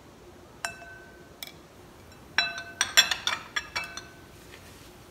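Spoon clinking against a bowl while spooning cornflour into a dry spice mix: two single ringing clinks, then a quick run of about eight clinks.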